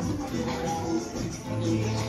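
Music with held melodic notes.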